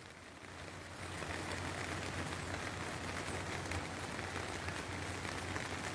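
Steady hiss of water around flooded ground, with a faint low hum under it, growing a little louder about a second in.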